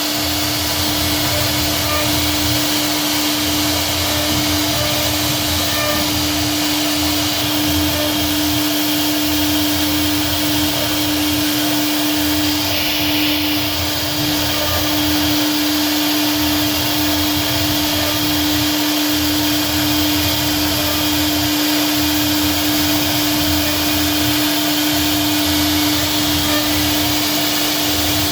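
CNC router machine running steadily, a constant whine over a dense, even noise.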